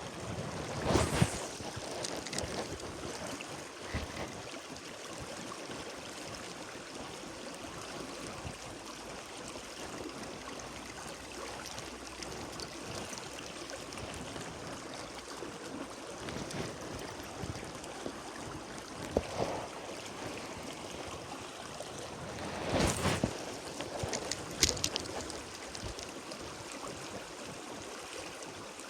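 Flowing stream water, a steady rushing, with a few brief louder noises about a second in and about 23 seconds in.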